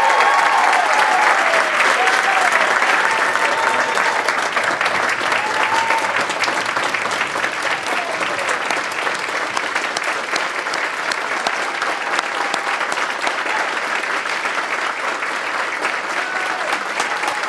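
A large theatre audience applauding continuously, with a few voices calling out over the clapping. The applause is loudest at the start and eases slightly.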